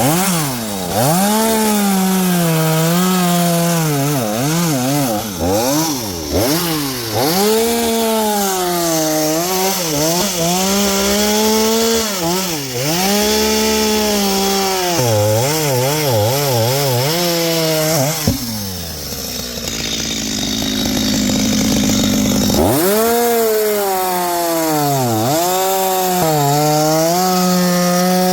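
Stihl two-stroke chainsaw cutting wood at high revs, its pitch repeatedly sagging and recovering as the chain loads up in the cut. About two-thirds through, the engine note drops away for a few seconds, then revs back up and cuts again.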